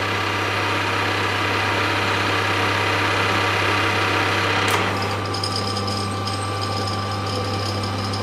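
A power tool running a spiral flute tap into a 3D-printed ABS spacer: a steady motor hum under a harsher cutting noise that stops sharply about five seconds in, leaving the motor running on its own.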